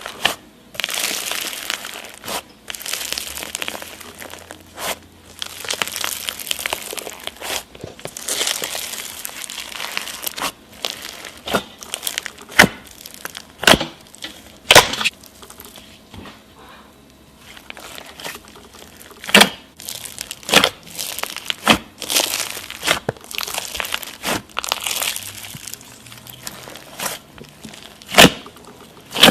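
Slime being squeezed and stretched by hand: crackly, crinkling bursts a second or two long, again and again, with a sharp pop now and then.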